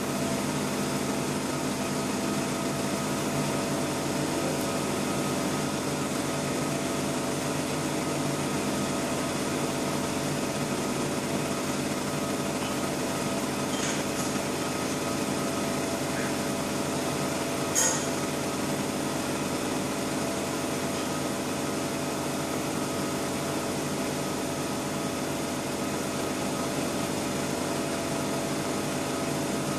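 Fiber laser marking machine (20 W Raycus source) running while it engraves, a steady mechanical hum with several steady tones throughout. A brief sharp click comes about 18 seconds in.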